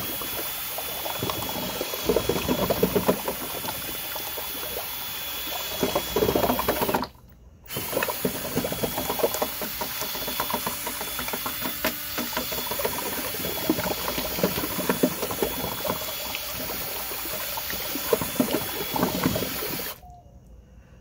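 Power-driven paddle mixer churning Portland cement and water slurry in a galvanized metal can, a motor whine under sloshing and scraping. It stops briefly about seven seconds in, starts again, and cuts off near the end.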